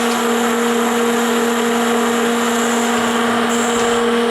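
Cincinnati Heald 273-A internal grinder running with its main drive on: a steady hum with a broad hiss. A short, high, thin whine comes in a little after three seconds in.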